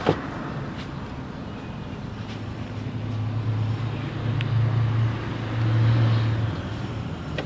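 A sharp click, then a passing vehicle's low engine hum that swells over a few seconds and fades away.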